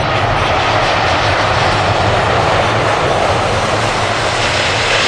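Airbus A380 jet engines as the airliner passes low with its gear down: a loud, steady rushing jet noise whose hiss grows brighter near the end.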